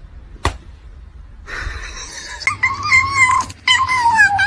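A cat gives two long, drawn-out meows, the second slowly falling in pitch, after a sharp click about half a second in.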